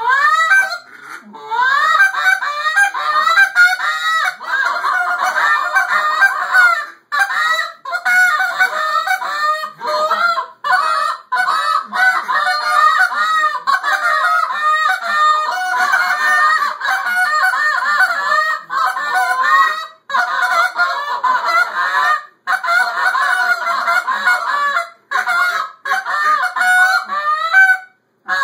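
Several hand-held goose calls blown at once, a fast, overlapping string of honks that breaks off briefly a few times.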